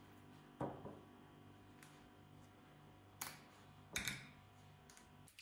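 Faint low steady hum with a few soft clicks and taps as frankfurter sausages are pushed onto sticks and handled in a tray.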